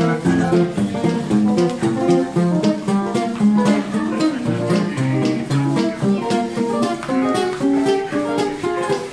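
Acoustic guitars playing swing jazz, with quick single-note lead lines over rhythm chords.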